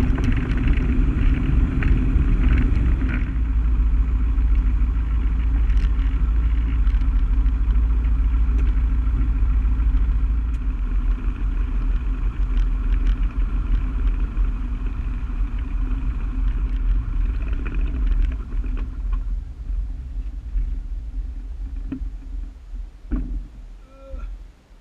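Single-engine light aircraft's piston engine and propeller running at low power, heard from inside the cockpit during the landing rollout and taxi, a steady low rumble. Near the end the engine is shut down and the sound dies away, with a few clicks as it stops.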